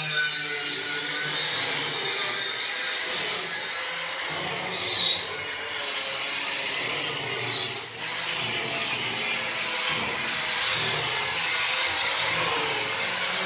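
A power tool running with a steady hiss, its high whine dropping in pitch again and again, about eight times.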